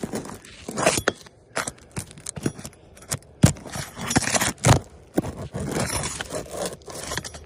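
Asphalt roof shingles being handled and pried up: irregular scraping and rustling with sharp knocks, the loudest about three and a half and nearly five seconds in.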